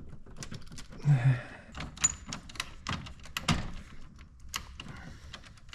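Circuit breaker being snapped back into a residential electrical panel: a run of sharp plastic-and-metal clicks and knocks as it is seated and the panel handled.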